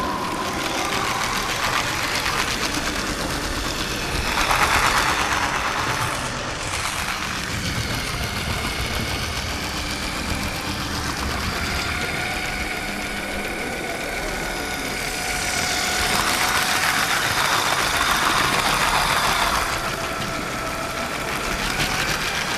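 LEGO 9V train running along its metal-railed track, heard from a camera riding on the train: the small motor and plastic wheels give a steady rattle with a wavering whine, swelling louder briefly about five seconds in and again for a few seconds later on.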